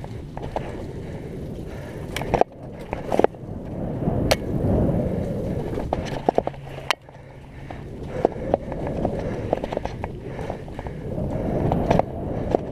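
Mountain bike riding a wet, leaf-covered dirt trail: tyres rolling over the ground with a rumble that swells and fades with speed, and many sharp clacks and knocks as the bike jolts over bumps.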